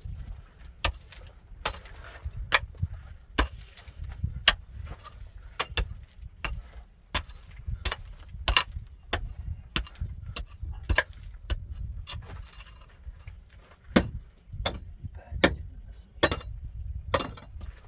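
Irregular sharp clinks and knocks from hand work with tools and fittings, about one or two a second, over a low rumble.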